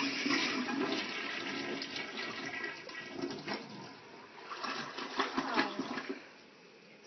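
Toilet flushing: water rushing through the bowl, easing off about four seconds in, swelling again briefly, then stopping about six seconds in.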